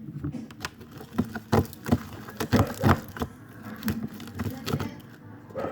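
Glue slime being worked in its container: irregular sticky clicks and squelches, thickest in the middle of the stretch, as the slime sets up.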